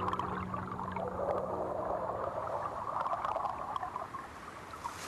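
Seawater and sand heard through hydrophones: a dense crackling and gurgling with scattered clicks and a faint low steady hum underneath. Right at the end it gives way to the hiss of surf.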